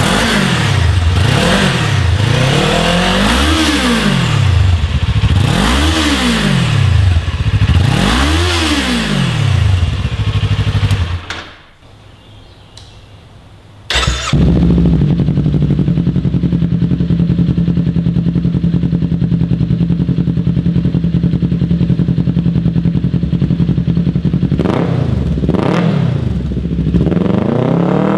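Kawasaki Ninja 400 parallel-twin engine on its stock exhaust, revved three times with the pitch rising and falling each time. About eleven seconds in the sound drops away briefly and a click follows, then the engine settles to a steady idle before being revved again near the end.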